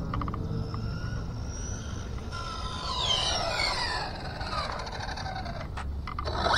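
Team Associated DR10 RC drag car's electric motor and gear drive whining, its pitch falling steadily about three seconds in as the car slows, over a low steady rumble.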